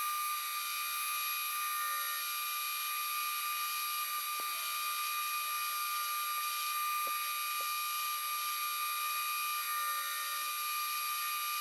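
Metal lathe turning a steel pulley blank while a form tool cuts its V-groove: a steady high-pitched whine over a hiss, with a few faint ticks.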